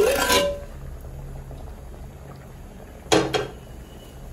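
A pot of masoor lentils, potatoes and water simmering at a light boil, with a brief clatter about three seconds in.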